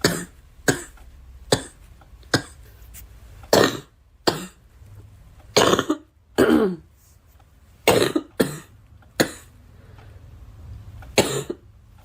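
A girl coughing over and over, about a dozen separate coughs at uneven gaps. Most are short and sharp; a few are longer and drop in pitch.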